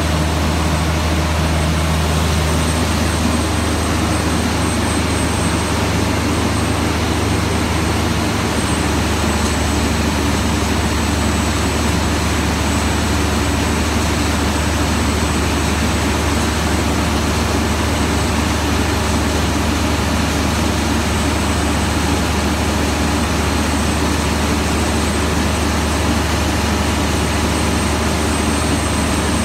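A Volvo 400 kW diesel generator set running steadily under a load test: a loud, continuous low drone with a thin high whine over it. The low drone shifts slightly near the start and again about eight seconds in.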